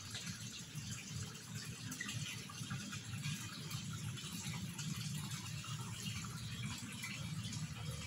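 Steady running water, trickling and splashing into a fish pond.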